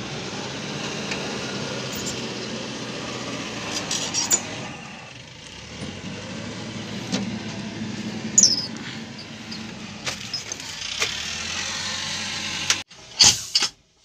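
A heavy vehicle's engine running steadily with a low hum, with a few light clicks and knocks over it. It cuts off abruptly near the end, followed by a couple of short, sharp noises.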